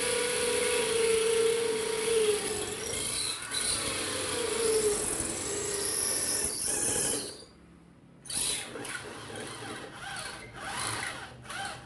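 Nagawa HDN6013 600 W corded impact drill in impact mode, boring into a concrete block with a masonry bit. The motor runs steadily with a whine, stops about seven seconds in, then runs in several short bursts.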